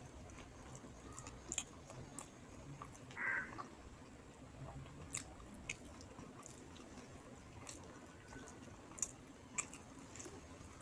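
A person chewing a mouthful of rice and fish curry, with soft scattered mouth clicks and smacks. A brief, louder, slightly squeaky sound comes about three seconds in.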